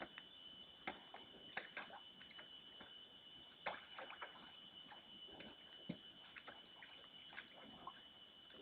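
Faint, irregular splashing and clicking of a bear pawing in water at a food hole, over a steady high-pitched whine.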